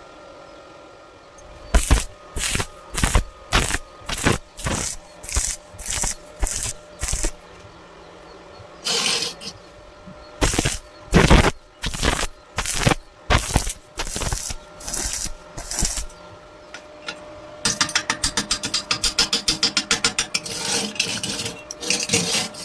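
Electric arc welding: a welding machine hums steadily, then short bursts of arc crackle about one and a half a second, as in tack welding. Near the end a fast, continuous crackle runs on.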